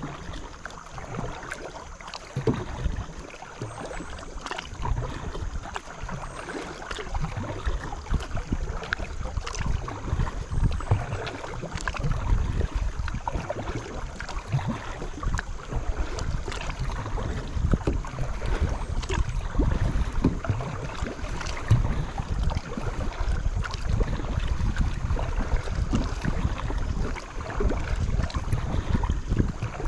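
Paddling a small boat on a creek: water splashing and sloshing around the paddle and hull, with scattered light knocks and wind rumbling on the microphone.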